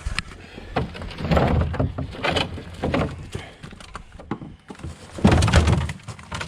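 Irregular knocks, thuds and scraping as car parts are handled and moved, with the loudest clatter about five seconds in.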